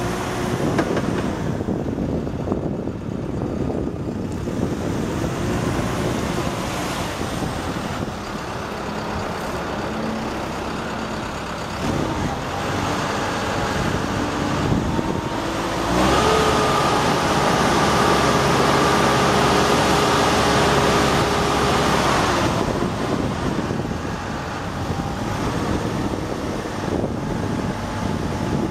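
Caterpillar TL1055 telehandler's diesel engine running as the machine moves. From about halfway through, for roughly six seconds, it gets louder and a steady whine rises over it, then cuts off: the engine working the hydraulics to raise and extend the boom.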